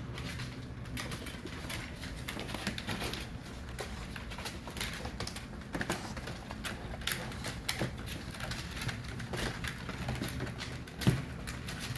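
Four-week-old pocket bully puppies whimpering and squeaking, with scattered clicks and taps and one louder thump near the end.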